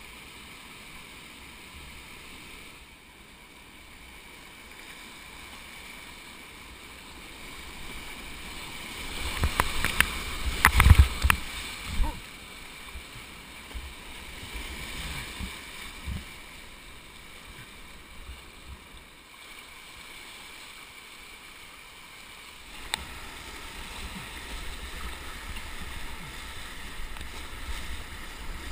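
Whitewater rushing around a kayak running a river rapid, with paddle strokes in the water. About ten seconds in comes a loud stretch of splashing and knocks as the boat punches through rougher water, and the rushing grows louder near the end.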